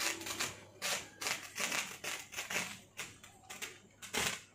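Firework fountain burning, giving off a run of sharp crackling pops about twice a second, each dying away quickly.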